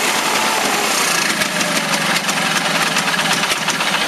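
Case lawn tractor's 20 hp Onan twin-cylinder engine running steadily on a priming charge of gas poured into it, after long storage; the owners suspect a weak fuel pump or a carburetor that needs cleaning.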